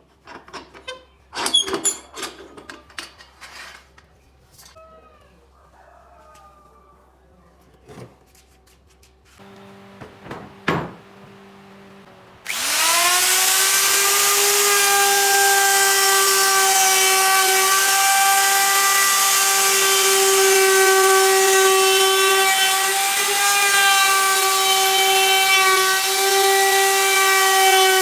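A few knocks and clicks of tools and wood being handled. Then, about halfway through, an electric power tool switches on: its motor whine rises quickly to a steady pitch and keeps running loudly with a hissing edge.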